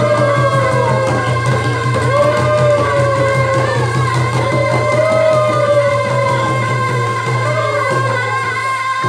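Kerala tribal dance music: a quick, steady drumbeat under a sung chant whose phrases rise and fall and begin again every two seconds or so, with a steady held tone underneath.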